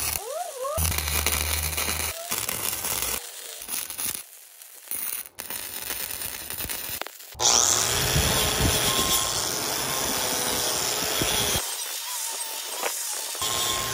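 MIG welding arc crackling and hissing in several short, separately cut bursts, then an angle grinder with a cup-shaped wheel running on the steel welds for about four seconds, the loudest part.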